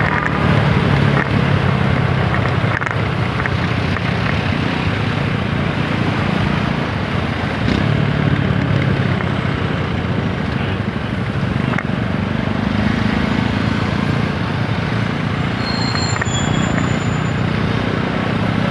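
Apache 160 4V motorcycle's single-cylinder engine running while riding, its note shifting a little up and down, over steady wind and road rush.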